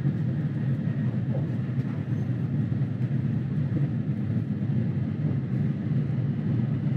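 Steady low rumble of a Shinkansen bullet train running at speed, heard from inside the passenger cabin.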